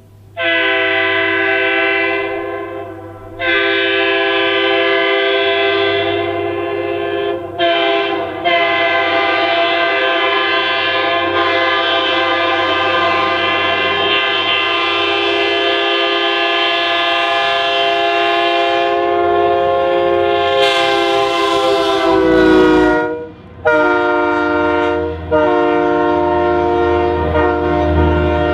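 A locomotive's multi-chime air horn blowing the grade-crossing pattern: two long blasts, a short one, then a long blast held for about fourteen seconds that drops in pitch as the locomotive passes. A few shorter blasts follow over the low rumble of the passing train.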